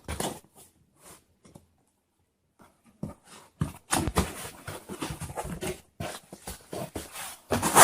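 A cardboard box being opened and its packaging handled: irregular rustling and scraping that starts about three seconds in after a short quiet spell.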